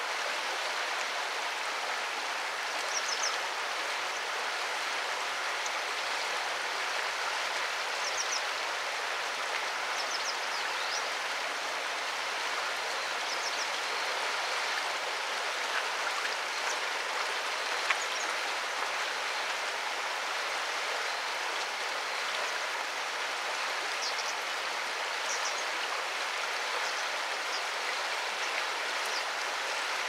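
Steady rush of flowing river water, with faint short high chirps now and then and a single light tick about halfway through.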